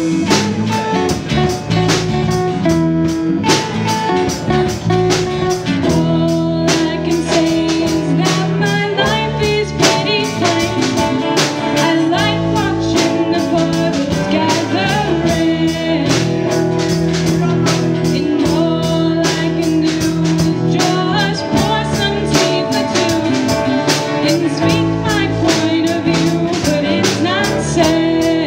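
A live rock band playing: electric guitars and a drum kit keeping a steady beat.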